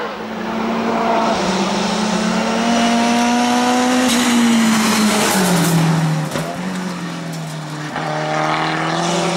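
Hill-climb race car engine running hard at high revs as it climbs; the revs fall about five seconds in and then hold steady through the bend, with a few sharp cracks along the way.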